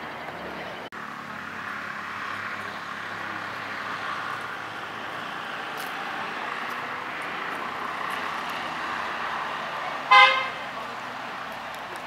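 A single short car-horn toot about ten seconds in, over a steady rushing background noise.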